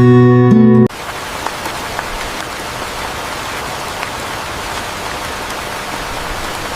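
Acoustic guitar music that cuts off abruptly about a second in, followed by steady rain, an even hiss with a few faint drop ticks.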